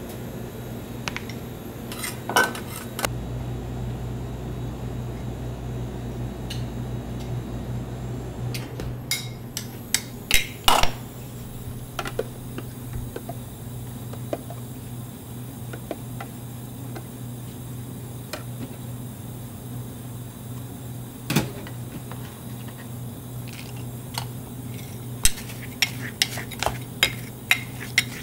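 Metal spades mixing ice cream on a cold stone plate: scattered sharp taps and clacks of metal on the slab with quieter scraping, coming in clusters, over a steady low hum.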